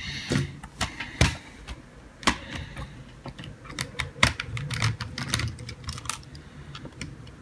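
Irregular small clicks and taps of a Toshiba Libretto 110CT's plastic case being handled on a table, then a precision screwdriver working out its bottom-case screws.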